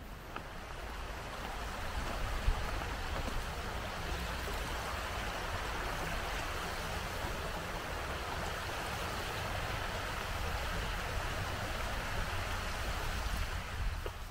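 Auldhouse Burn, a small river, rushing steadily over rocks. The sound swells over the first couple of seconds and then holds even, with one brief knock about two and a half seconds in.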